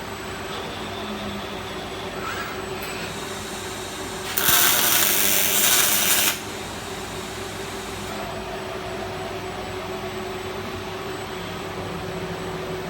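Steady hum of a robotic welding cell, with one loud burst of even, hissing crackle lasting about two seconds, starting a little under halfway: a short Fronius CMT weld run on steel tube.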